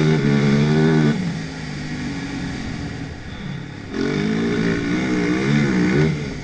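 Yamaha YZ450F single-cylinder four-stroke motocross engine riding under throttle. The throttle is shut about a second in and the engine runs quieter for about three seconds, then it is opened again about four seconds in, the pitch rising and falling.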